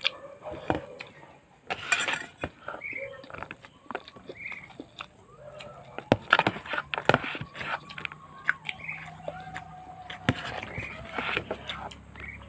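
Close-up eating sounds of fried rice eaten by hand: repeated wet smacks and clicks of chewing and lip-smacking. A few short animal calls can be heard behind them, a couple of seconds apart.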